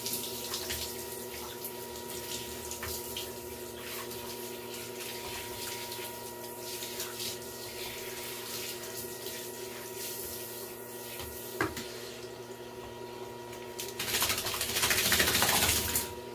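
Running water rinsing a small dog during its bath. There is a single click about midway. Near the end the water gets louder for about two seconds, then stops abruptly.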